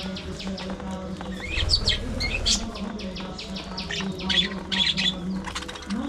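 A flock of budgerigars chattering: many quick, short chirps and warbles tumbling over one another, over a steady low hum.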